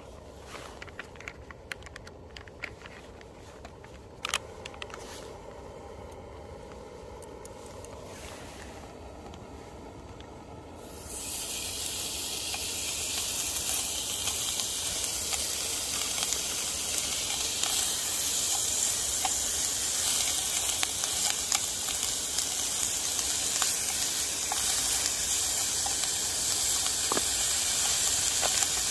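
A few light clicks and knocks, then, about eleven seconds in, a portable gas camping stove's burner starts with a sudden steady hiss that holds on at an even level.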